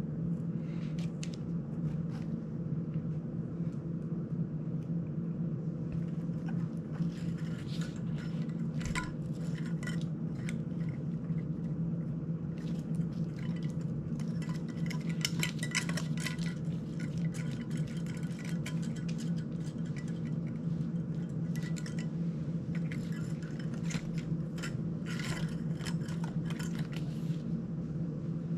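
Small metal parts, screws and tools clinking and tapping on a workbench while an FPV drone's frame and prop guards are handled and fastened, in scattered clusters. A steady low hum runs underneath.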